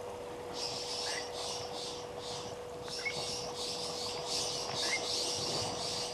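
Birds calling: a rapid high-pitched pulsing of about three a second, with a short rising chirp every second or two, over a steady faint tone.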